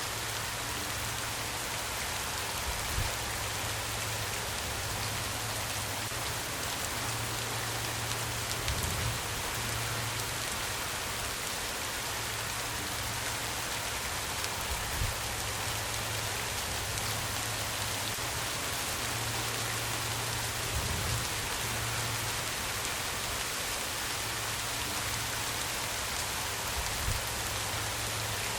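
Steady heavy rain falling on a surface, an even hiss of drops, with a few brief low thuds scattered through it.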